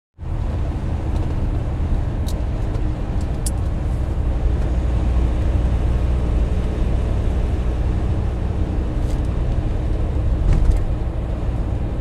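Car interior noise while driving on a motorway: a steady low drone of tyres and engine, with a few faint light clicks now and then.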